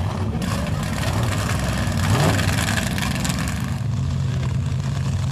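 Big lifted mud-bog truck engine running, with a quick rev up and back down about two seconds in, then a steady low engine note near the end.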